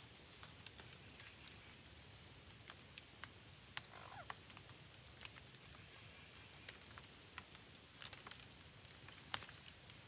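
Red-breasted parakeets perched in a tree: faint scattered clicks and taps, a few of them sharper, with one short soft call about four seconds in.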